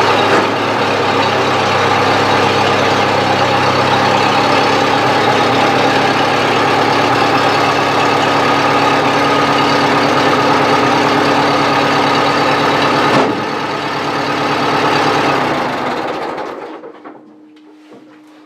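Bobcat 610 skid steer's carbureted four-cylinder gasoline engine idling steadily. About two-thirds in there is a sharp click and the engine note drops, then the engine winds down and stops shortly before the end.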